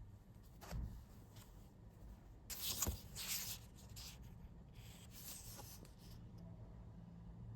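A few soft, short scratchy rustles of something being handled, the loudest about three seconds in.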